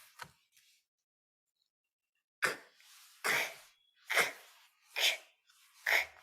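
A woman repeating an unvoiced consonant letter sound for a phonics drill: five short, breathy puffs of air, a little under a second apart.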